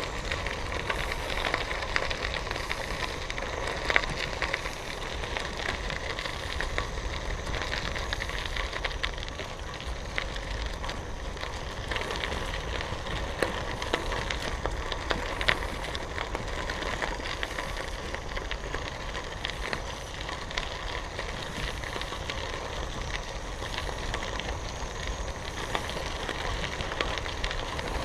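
Bicycle tyres rolling over a gravel trail, a steady crunching crackle of small stones under the wheels, over a low rumble.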